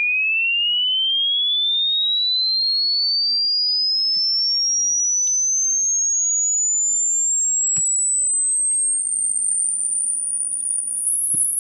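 Pure sine test tone gliding steadily upward in pitch, from a high whistle to a very high, thin tone near the top of the hearing range. It is a frequency sweep for an ear-age hearing test: the higher it climbs, the younger the ears must be to still hear it.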